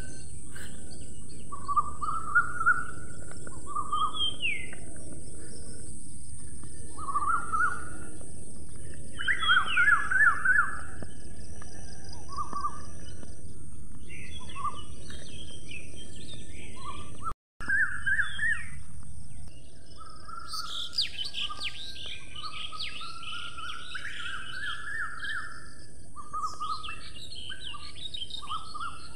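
Small birds chirping and singing in short, varied phrases over a steady high hiss. The sound cuts out completely for an instant a little past halfway, then the birdsong carries on, busier.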